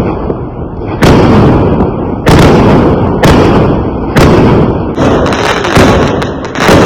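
Fireworks going off in a rapid series, a loud bang about every second, each trailing off in a low, fading rumble.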